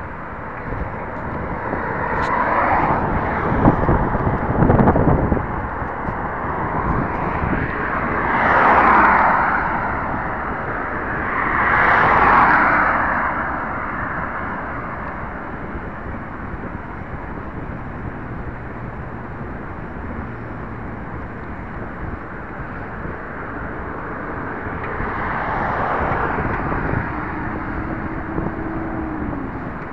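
Steady wind and road rumble on a bicycle-mounted camera while riding, with cars passing close by four times, each swelling up and fading away over a couple of seconds.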